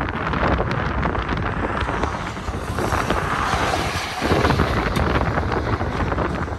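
Wind rumbling across the microphone, with cars hissing past on a wet road.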